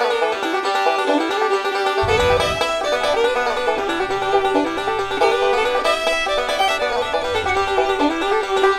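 Background instrumental music: a quick, steady run of plucked-string notes.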